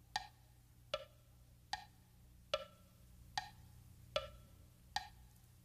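Quiet tick-tock beat on a wood block: seven single knocks about 0.8 s apart, alternating slightly higher and lower in pitch, imitating a ticking clock as the intro to a song.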